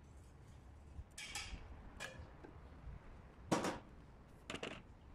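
A few short, irregular knocks and clatters of hard plastic pipe fittings and tools being handled and set down, the loudest about three and a half seconds in.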